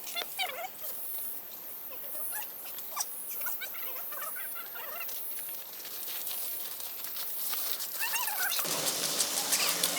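Short, high squeaks and chirps from small animals over a light steady hiss, with pattering. Near the end a motor starts up and grows louder.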